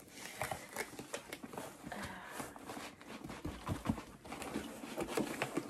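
Cardboard box and paper packing being handled during unboxing: irregular rustling with scattered light knocks, and a few duller thumps in the second half.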